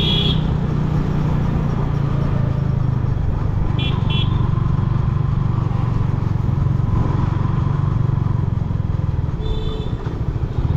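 Yamaha MT-15's 155 cc single-cylinder engine running steadily under way. Short high beeps cut in briefly about four seconds in and again near the end.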